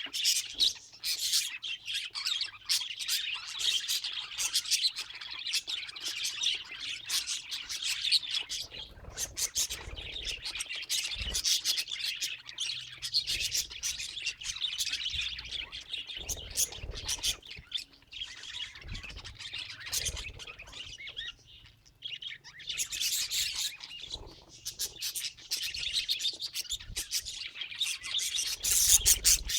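Budgerigars chirping and chattering in a continuous rapid warble, with a short lull about three-quarters of the way through.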